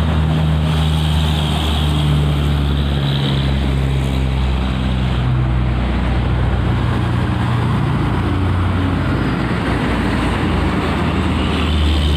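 An engine running steadily, a low even hum whose pitch shifts a little now and then.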